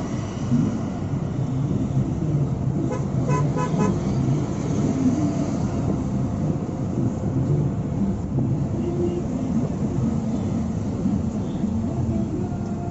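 Car cabin traffic noise: a steady low engine and road rumble while the car drives through city traffic. About three seconds in comes a quick run of about four short car-horn toots.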